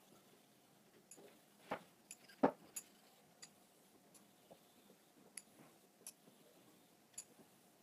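A kamisori razor being honed by hand on a hand-held whetstone: scattered light clicks and taps of steel on stone, with two louder knocks about two seconds in.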